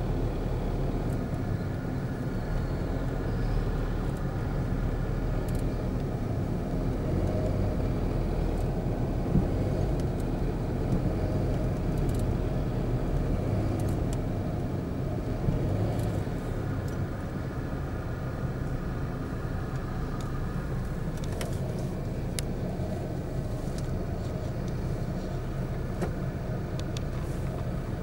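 Car driving, heard from inside the cabin: steady low engine and road noise.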